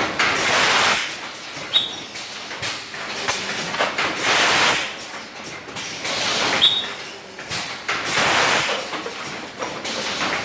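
PET bottle blowing machine cycling, a loud hiss of compressed air about every four seconds, with clicks and knocks from the machine between the blasts and a short high tone a few times.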